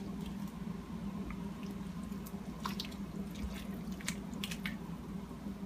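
A spoon stirring shredded chicken into a steel pot of broth: scattered wet splashes and light clicks against the pot, over a steady low hum.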